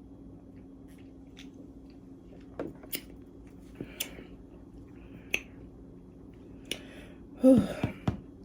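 Mouth and throat sounds from a woman drinking Pepsi: a scatter of soft wet clicks and smacks, then, about seven and a half seconds in, a louder short throaty gulp with a falling pitch.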